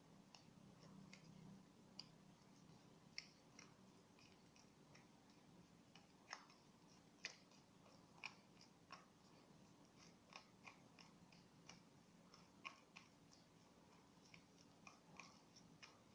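Faint, irregular sticky clicks and smacks from a thickening slime mixture being stirred in a bowl.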